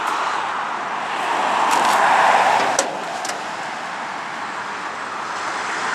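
A car passing by, its noise swelling to a peak about two seconds in and then falling away, with a few light clicks in the middle.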